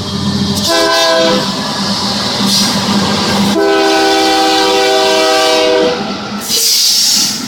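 Union Pacific intermodal train's locomotive horn sounding a chord: a short blast about a second in, then a long blast of a couple of seconds just past the middle. It sounds over the low running of the diesel locomotive, with a burst of loud hiss near the end.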